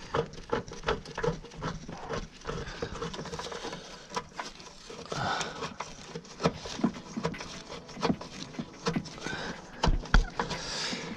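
Hand tools working on a bolt: a socket wrench with an extension clicking and clinking in quick, irregular knocks, with a short grunt or breath now and then.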